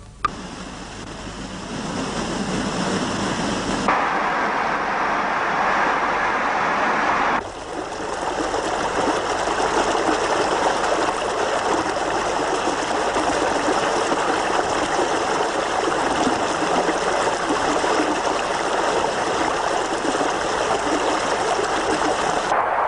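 Rushing water of a stream, a steady noise that changes abruptly about four seconds in and again at about seven and a half seconds.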